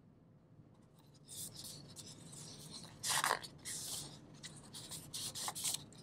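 Paper rustling and sliding as a page of a hardcover picture book is turned and smoothed flat, in a run of scrapes starting about a second in, the loudest just after three seconds.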